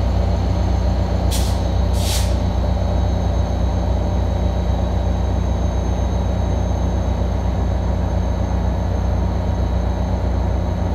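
Caltrain diesel locomotive idling at the platform with a steady low engine drone. Two short, sharp hisses of released air come about one and a half and two seconds in.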